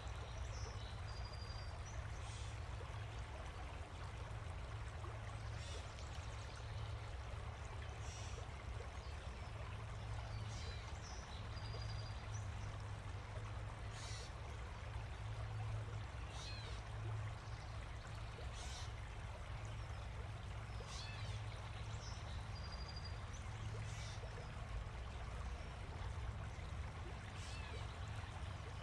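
Steady rushing outdoor ambience with a low rumble underneath, broken every couple of seconds by short high bird chirps.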